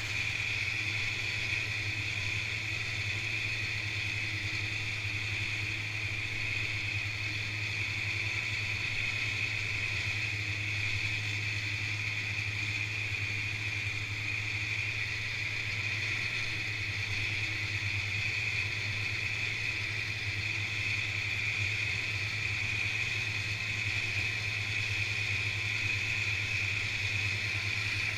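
Snowmobile engine running at a steady cruise, a 1986 Polaris Indy Trail 488 fan-cooled two-stroke twin, with a constant low drone and a steady higher whine and no change in speed.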